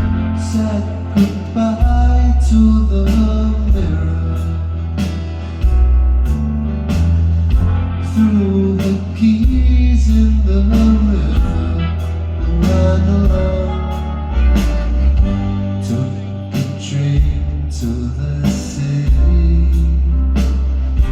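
Rock band playing live: bass, guitars and a drum kit keeping a steady beat, with a man singing over them.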